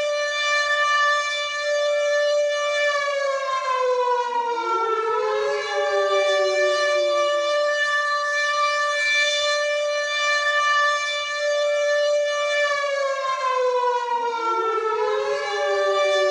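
WW2-style air raid siren wailing: it holds a steady high pitch, then slides down while a fresh rising wail swells back up to the held note. The cycle comes round twice, about ten seconds apart.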